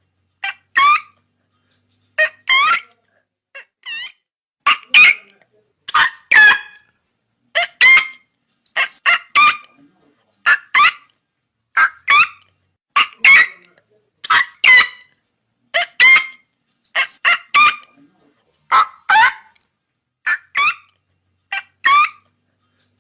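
Pelican calling: a long series of short, sharp pitched calls, often in quick pairs, repeating about once a second.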